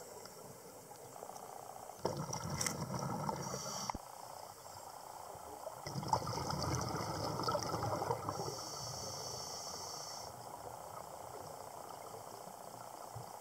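Scuba breathing heard underwater: two bursts of exhaled bubbles gurgling, each about two seconds long, and a hiss from the regulator in between, over a faint steady underwater background.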